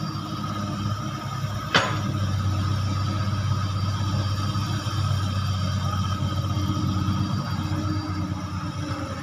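Komatsu long-reach excavator's diesel engine running at a steady drone while it dredges mud from the canal with its bucket. One sharp knock comes about two seconds in.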